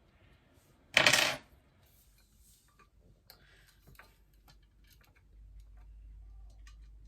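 Parts of a metal pipe clothing rack being fitted together by hand: a short loud scrape about a second in, then scattered light clicks and taps as a fitting is worked into place.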